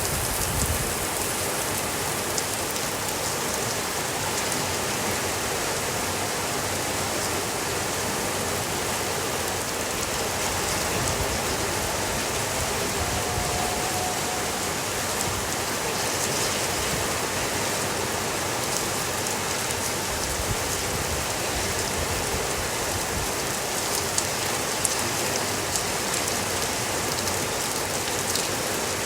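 Steady, even rainfall, with a few sharper ticks about three quarters of the way through.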